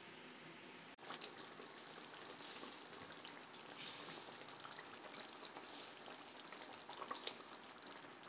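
Fish curry simmering in a kadai: a dense patter of small bubbling pops and crackles that starts after a cut about a second in, with a faint steady hiss before it.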